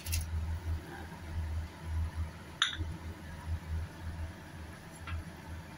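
Crockery clinking against the rim of a stainless steel soup pot, once sharply about two and a half seconds in and faintly near the end, as onion and garlic are tipped from a plate into the broth. Under it runs a low, uneven rumble from the gas burner heating the pot.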